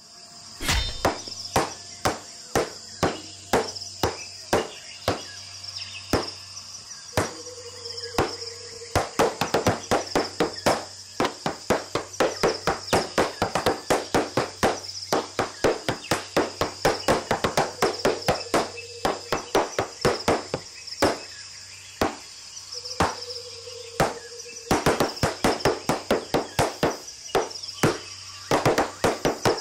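Tap shoes striking wooden boards in quick rhythmic runs of taps, with brief pauses between phrases, over a steady high-pitched drone.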